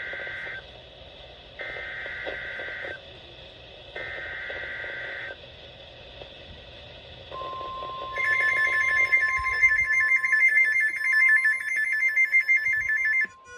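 NOAA Weather Radio alert tones on weather-alert radios. First come three short bursts of the SAME digital header's screeching data tones, about a second and a half apart. After a pause the steady 1050 Hz warning alarm tone starts, and about a second later a receiver's own loud, rapidly pulsing electronic alarm sounds over it until it cuts off near the end. This is the header and alarm that open a special marine warning.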